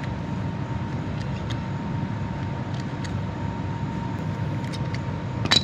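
Steady air-conditioner noise fills the room, with a faint steady high hum. Over it come a few faint clicks from a hand hydraulic crimper being worked on a cable lug, and a sharper click near the end.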